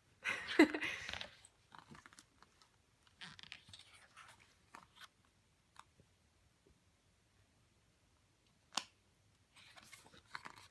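Paper and plastic CD album packaging being handled, crinkling and rustling, loudest in the first second and a half. A single sharp click comes about nine seconds in, and more rustling follows near the end.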